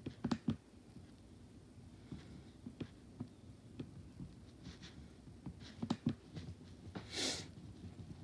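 Scattered light clicks and taps from objects being handled, with a short rustle about seven seconds in.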